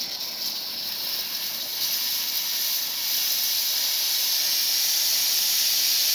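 Breville 980XL espresso machine's steam wand venting steam: a steady, strong high hiss that builds over the first few seconds and then holds.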